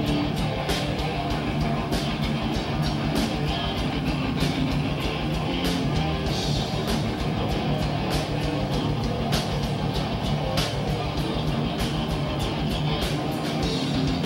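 Heavy metal band playing live through a club PA: distorted electric guitars, bass and drums, with a fast, even kick-drum pulse and regular cymbal hits. The lowest bass thins out near the end.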